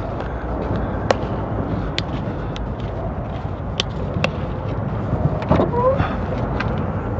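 Scattered clicks and knocks of kayak gear being handled, over a steady low rumble, with a short rising squeak about five and a half seconds in.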